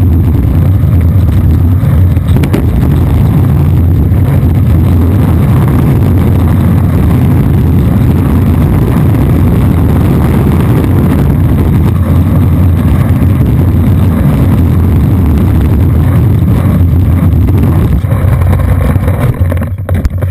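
Skateboard wheels rolling fast over asphalt, a loud steady rumble that dies away about a second before the end as the board stops.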